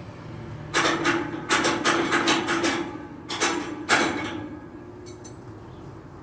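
An irregular run of sharp knocks and clanks, about nine in quick succession in the first four seconds and then stopping, over a steady low hum.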